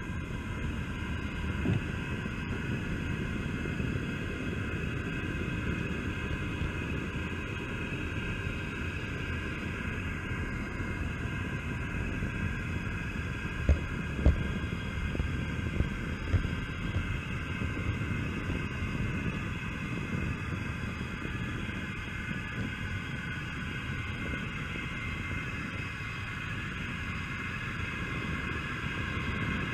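Model train running on its track, heard from a camera riding on it: the steady whir of its small electric motor and gearing over a low rumble of wheels on rail, with a few sharp clicks around halfway through.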